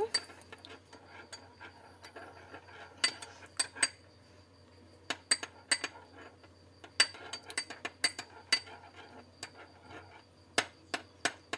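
A spoon clinking against a bowl in irregular taps while it stirs green colouring into liquid glue.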